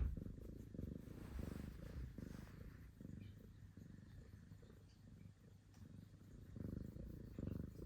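Kitten purring close up: a steady, low, finely pulsed rumble that swells and eases in cycles, softer in the middle and louder near the end.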